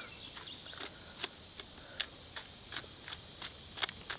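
Wooden pepper mill being twisted to grind peppercorns, giving a string of short, dry clicks about two or three a second.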